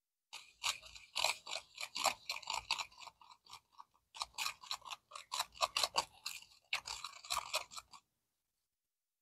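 Plastic chopstick stirring damp soil in a clear plastic cup: rapid, irregular gritty scraping strokes, with a short pause about four seconds in, stopping about a second before the end.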